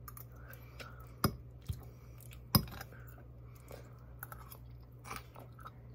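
Someone eating a chimichanga with a metal fork: quiet chewing with a few sharp fork clicks, the two loudest about a second and two and a half seconds in. A faint steady low hum runs underneath.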